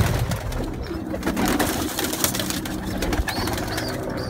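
Domestic pigeons cooing low and continuously, with scattered clicks and rustles.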